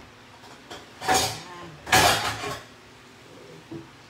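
Spatula stirring and scraping in a frying pan of braising meat: two short scraping clatters, about one and two seconds in.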